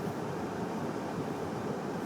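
Steady rumble of a car driving through snow-covered streets, heard from inside the cabin: engine and tyre noise with no distinct tones or knocks.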